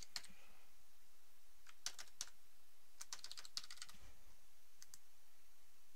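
Computer keyboard typing: a login name and password keyed in short bursts of key clicks.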